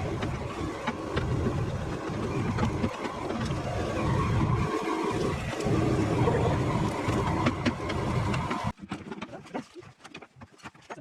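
A large engine running steadily under scattered metal knocks. It cuts off abruptly near the end, leaving faint scattered clicks.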